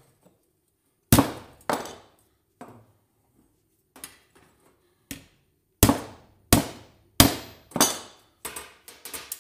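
A hammer striking metal scrap, about a dozen sharp blows each with a short metallic ring, irregularly spaced and coming quicker near the end, as pieces are broken or cut up.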